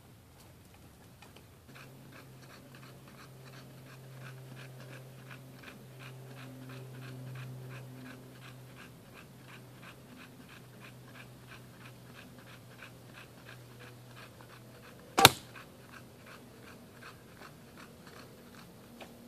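Bulldog panting hard in a rapid, even rhythm of breaths. About fifteen seconds in, a single loud, sharp snap of a recurve bow being shot.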